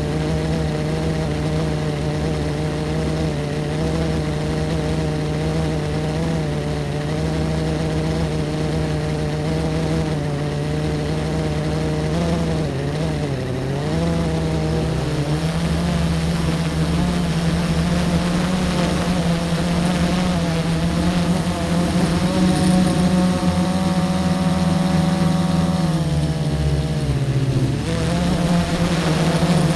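Car engine running steadily while driving, with road hum underneath. The engine note dips briefly about halfway through, then falls and climbs again near the end as the car slows and picks up speed.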